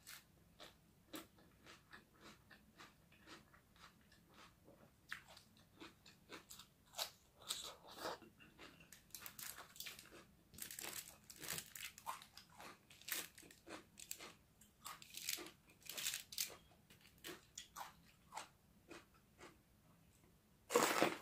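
Close-up crunching and chewing of crisp raw vegetables, lettuce and bell pepper, in many short irregular crunches. The loudest crunch comes near the end: a bite into a whole raw bell pepper.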